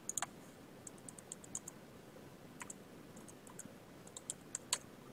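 Computer keyboard keystrokes and mouse clicks as a dimension value is typed in. There are short runs of quick, sharp clicks about a second in and again near the end, with single clicks in between.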